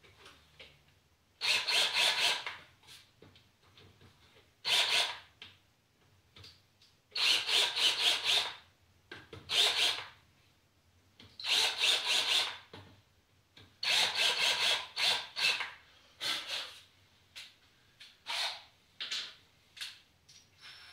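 Power drill with a countersink bit cutting into wood, in a series of short runs of about a second each, one screw hole after another.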